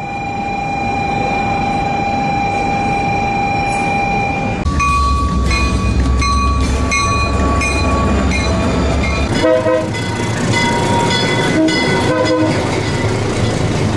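Three train recordings in a row. First a Shinkansen bullet train pulls into the station with a steady high tone over its rushing noise. Then a Rocky Mountaineer diesel locomotive's engine rumbles deeply, and near the end a PeruRail train passes close with clattering wheels and several short horn toots.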